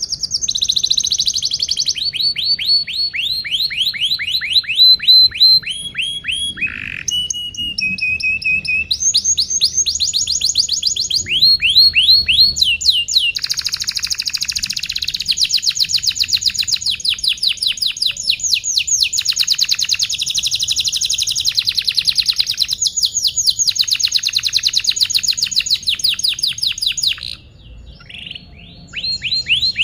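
Domestic canary singing a long, continuous song of fast trills, each a run of quickly repeated high notes, switching to a new note type every few seconds. The song breaks off briefly near the end, then resumes.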